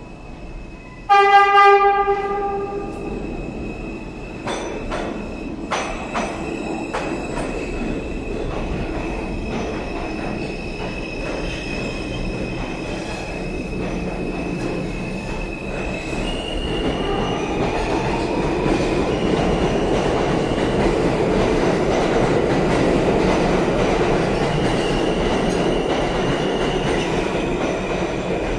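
NYC Subway R211T open-gangway train sounding one horn blast about a second in, then running past the platform without stopping. The wheels give a series of clicks over the rail joints, a steady high squeal and a roar that builds as the cars go by.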